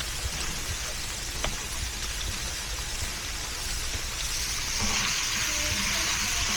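Beef sizzling in a frying pan: a steady hiss that grows louder about four and a half seconds in.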